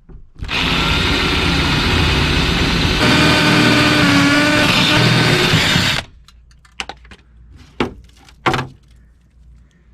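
Handheld electric power tool running hard for about five and a half seconds, its pitch wavering under load, then cutting off; a few sharp knocks follow.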